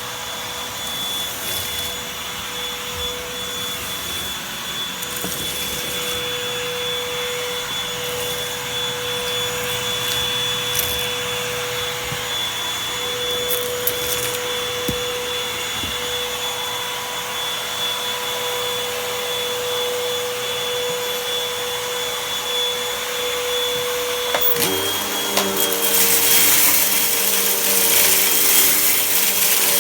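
Vacuum cleaner sucking up dirt, its motor running with a steady whine. About 24 seconds in the motor note drops and a louder, gritty rattling hiss takes over as dirt is pulled through the hose.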